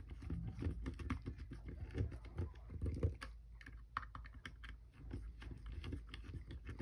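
Screw terminals on an LED controller board being tightened with a small screwdriver: a run of faint, irregular clicks and scrapes.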